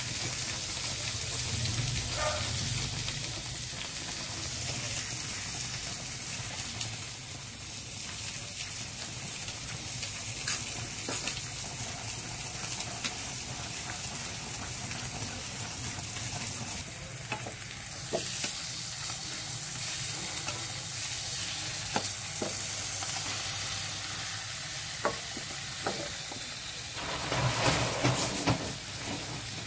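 Wooden spoon stirring and scraping mashed potatoes with milk in a pan over steady sizzling, with scattered small clicks of spoon on pan. Near the end the sizzling grows louder as a tuna fillet is turned in a frying pan.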